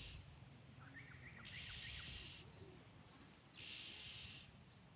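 An insect buzzing in regular pulses, each about a second long and repeating about every two seconds. A bird gives a brief burst of short high notes about a second in.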